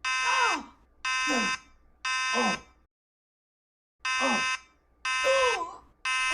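Fire alarm buzzer sounding in short blasts: three a second apart, a pause, then three more. Each blast is a steady buzzing tone with a falling tone beneath it.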